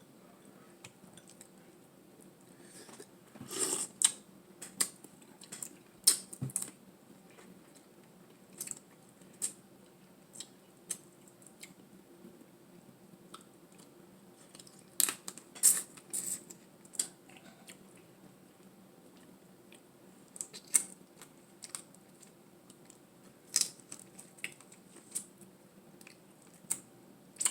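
Close-miked eating of a seafood boil: scattered sharp clicks, small cracks and chewing, in short clusters with quiet stretches between.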